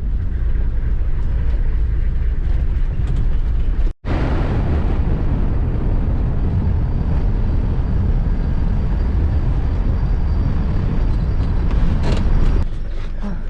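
Jeep on the move: a loud, steady low rumble of engine, road and wind noise, breaking off for an instant about four seconds in.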